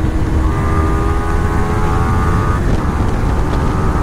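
Yamaha R15 V3's 155 cc single-cylinder engine running under way, with a steady note that breaks briefly twice, just after the start and near three seconds in. Heavy wind rumble on the microphone lies under it.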